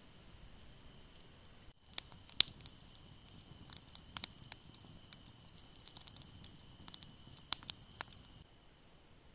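Wood fire crackling in a metal fire basket, with sharp pops scattered through, the loudest about two seconds in and a quick cluster near the end, over a steady high hiss.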